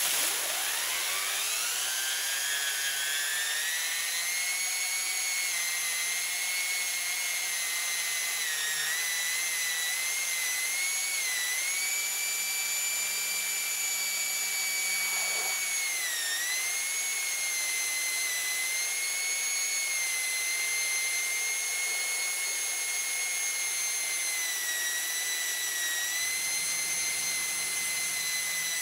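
Waterjet-powered homemade chainsaw running: the 60,000 PSI water jet spins the drive and chain up with a rising whine over the first few seconds. It then holds a steady high whine over the hiss of the jet, with a brief dip in pitch about halfway through.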